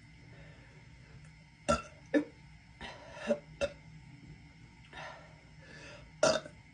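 A woman burping: a string of short, sharp burps, the loudest about two seconds in, a pair near three and a half seconds, and another near the end, with softer ones between.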